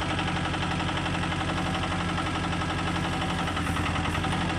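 Excavator engine running steadily while the boom and stick are worked. About three and a half seconds in, its tone deepens as the stick is pushed out under hydraulic load.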